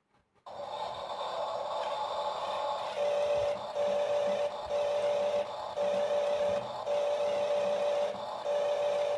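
RC tractor's electric drive motor and plastic gearbox whining under load as it pulls a 4 kg dumbbell. The whine starts about half a second in, holds one steady pitch, and dips briefly about once a second.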